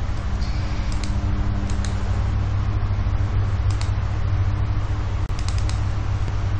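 Steady low hum and hiss of background noise, with a few sharp clicks of a computer mouse scattered through it, several in quick succession near the end.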